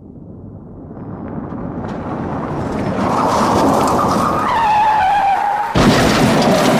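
Vehicle sound effect: a rush of noise that builds up steadily, a squeal from about halfway through that drops in pitch, then a sudden loud burst of noise near the end.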